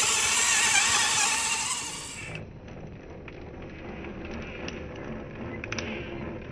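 A motor revving and whining, its pitch wavering up and down, for about two seconds. It then cuts off abruptly, leaving a quieter background with scattered clicks and light rattles.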